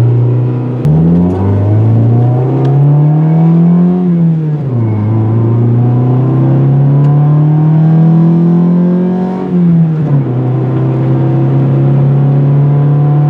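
Honda D15B7 four-cylinder with a D16Z6 VTEC head, heard from inside the car, accelerating hard through the gears. The engine note climbs, drops sharply at an upshift about four seconds in, climbs again, drops at a second shift near ten seconds, then holds steady. It runs on an untuned stock P28 ECU with the VTEC not yet wired, so it stays on its non-VTEC cam.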